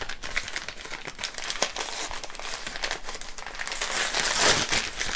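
Packing material crinkling and rustling as a wrapped beer bottle is dug out of a shipping box and unwrapped, with dense crackling throughout that grows loudest about four seconds in.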